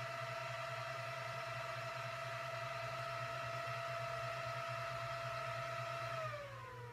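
Supermicro SYS-E300-8D server's cooling fans running at full speed during boot, a steady high whine with a low hum under it. About six seconds in the fans spin down, their pitch falling and the level dropping, as the BIOS finishes booting and the fans settle to idle speed.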